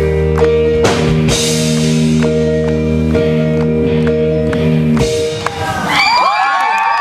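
A live piano-rock band holds a chord over steady drum hits as a song ends. The music stops about five seconds in, and the audience starts cheering and screaming.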